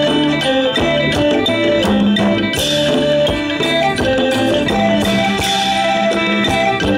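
Live Isan folk music ensemble playing an instrumental passage between the sung verses of a lam klon: a melody over sustained chords, with a steady percussion beat and a couple of brief cymbal-like splashes.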